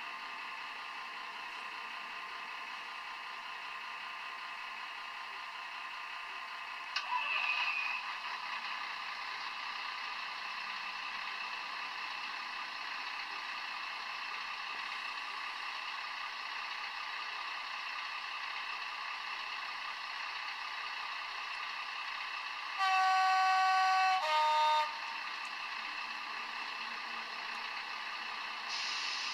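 DCC sound decoder of a model British Rail diesel locomotive playing a steady diesel engine sound through its small speaker, with no deep bass. About seven seconds in there is a brief click. Near the end comes a two-tone horn: a higher note held for about a second and a half, then a short lower note.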